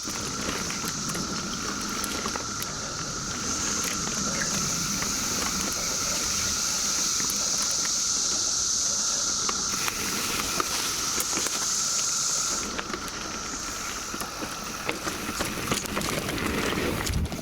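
A chorus of 17-year periodical cicadas makes a steady high drone, with a second, lower steady buzz beneath it. The high drone eases off about two-thirds of the way through. Under it runs the rough rolling noise of mountain bikes on a dirt trail, with scattered small clicks and knocks.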